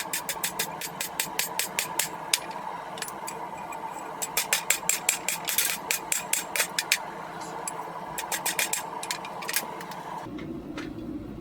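Hand hammer striking a hot rail spike on an anvil as the blade is drawn out, a rapid run of sharp blows about four a second. After a short pause there is a briefer run of strikes. A steady mechanical hum runs under them and cuts off suddenly about ten seconds in.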